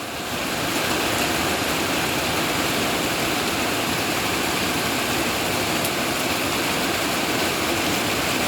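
Heavy rain pouring down, a steady even hiss of falling water that swells a little in the first second.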